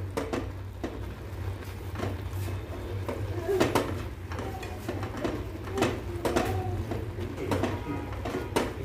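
A spatula scraping and knocking irregularly against a frying pan while grated carrots cooking in milk are stirred, over a steady low hum.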